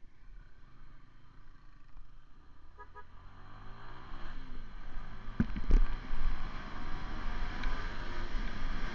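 Motorcycle engine accelerating away from low speed, its pitch rising through the revs as the bike picks up speed, with wind and road noise building on the bike-mounted camera's microphone. Two sharp knocks a little past halfway are the loudest sounds.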